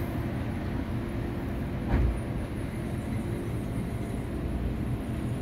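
Steady low rumble, with one short knock about two seconds in.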